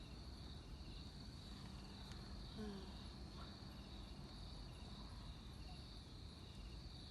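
Faint steady high-pitched trilling of insects, like a cricket chorus, over a low background rumble.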